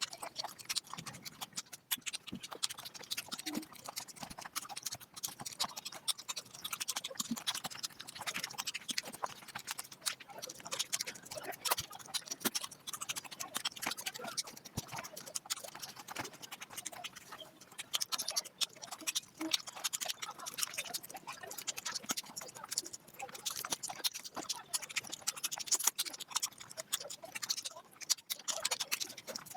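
Close-miked eating sounds sped up about five times: a dense, continuous stream of quick chewing smacks and clicks.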